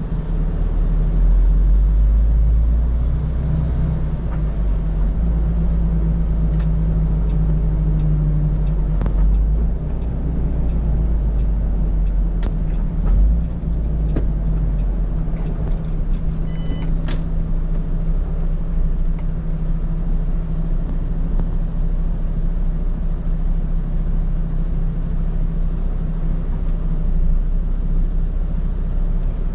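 MAN TGX 18.480 truck's six-cylinder diesel engine running at low speed, heard from inside the cab, a little louder in the first few seconds, with a few faint clicks around the middle.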